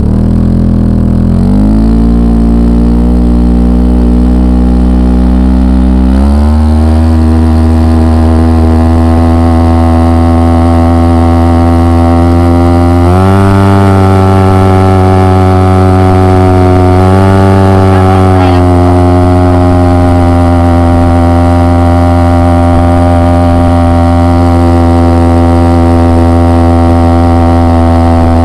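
Small motor vehicle's engine running loud and steady while driving across snow, its pitch stepping up as it speeds up: about a second in, again about six seconds in and around thirteen seconds, then holding.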